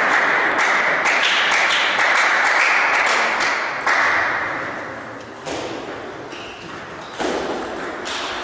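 Table tennis ball clicking off the rackets and the table in a quick run of hits, over loud background hall noise. About four seconds in the noise drops away, leaving a few scattered ball clicks.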